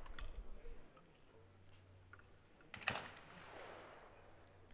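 A single sharp shotgun shot about three seconds in, with an echoing tail, over a quiet open-air background.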